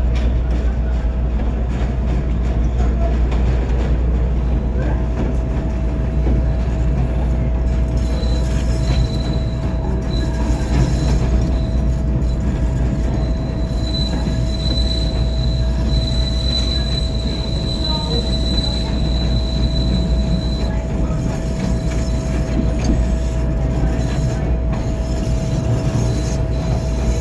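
CTA 'L' elevated train running over steel elevated track with a steady low rumble and a constant hum. From about eight seconds in, a thin, high wheel squeal comes and goes as the train takes a curve, then stops about twenty seconds in.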